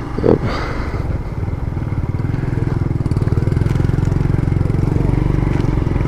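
Motorcycle engine running while riding along a dirt road. It grows a little louder over the first couple of seconds, then holds steady.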